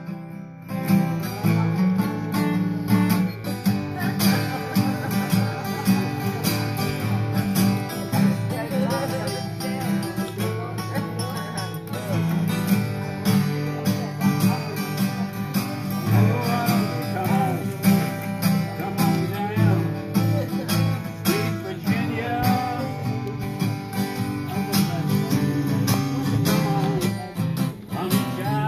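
Two acoustic guitars picked and strummed together, playing a tune in a casual jam.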